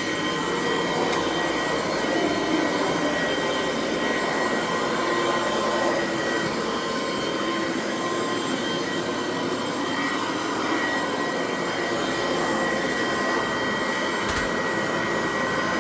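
Dual Sanitronic 80 vacuum cleaner running steadily, its motor whine holding one high pitch over the rush of air.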